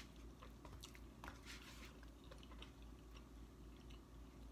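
A person chewing food faintly, with scattered soft clicks.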